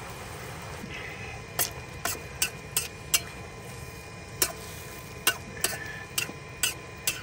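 Cabbage and pork cooking in a pan over a wood fire: about a dozen sharp, irregular clicks and taps over a low steady hiss.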